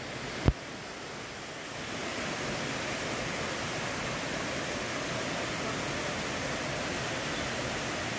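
Steady rush of a rocky creek's flowing water, with one brief thump about half a second in. The rush grows slightly louder about two seconds in.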